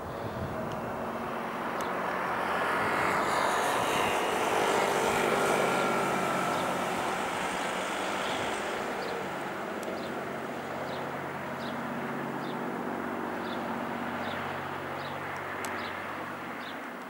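Hawker Hurricane's Rolls-Royce Merlin V12 engine droning in flight. It swells to its loudest a few seconds in, then fades steadily as the aircraft flies away.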